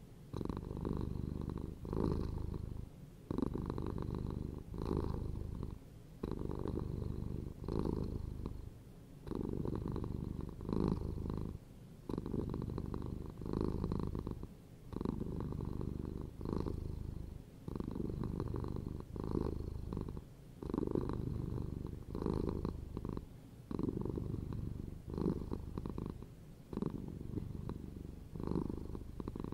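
A domestic cat purring, swelling and fading in a steady rhythm of about one breath a second.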